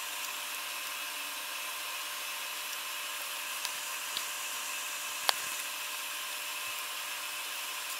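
Steady hiss of a bench fan running, with a few small clicks of metal tools against the wiring during soldering, the sharpest about five seconds in.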